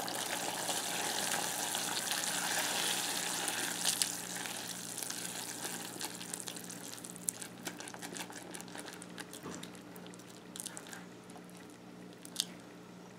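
Hot sugar syrup, cooked to just shy of 300 °F (near the hard-crack stage), sizzling and bubbling in a saucepan as vanilla extract is stirred in with a silicone spatula. The hiss fades gradually as the bubbling settles, with a few light clicks of the spatula against the pan.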